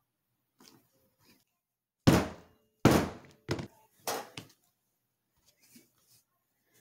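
Four sharp knocks on a plastic cutting board while a small metal tool is worked into a piece of leather; the first two are the loudest.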